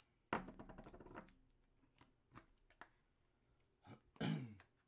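A quick crackling rattle of handling noise starts sharply about a third of a second in and lasts about a second. Near the end comes a short murmured voice sound that falls in pitch.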